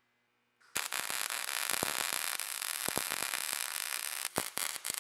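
MIG welding arc crackling and hissing steadily as a box tube is welded to a spare tire mounting plate, starting about a second in after a brief silence, with a few sharper pops along the way.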